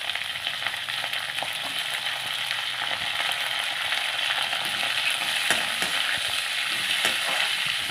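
Sliced onions frying in hot oil in a stainless steel kadai over a high flame: a steady sizzle, with scattered clicks and scrapes of a metal ladle stirring them.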